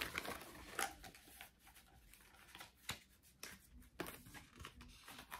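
Moonology oracle cards being shuffled and handled by hand: scattered soft clicks and rustles of the card edges, busier in the first second or so and sparser after.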